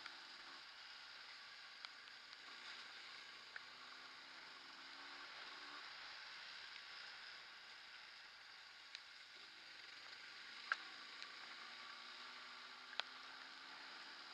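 Faint engine of a Yamaha DT230 Lanza two-stroke dirt bike on the move, its pitch rising and falling, under a steady hiss. A few sharp clicks, two louder ones in the second half.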